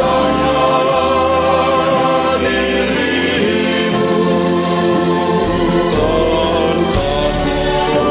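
Mixed church choir of men's and women's voices singing a hymn in sustained notes.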